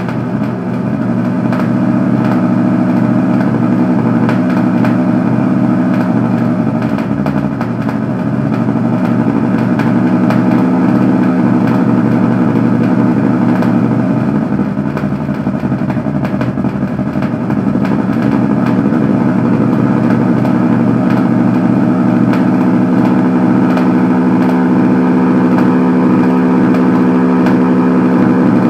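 A loud, steady engine drone.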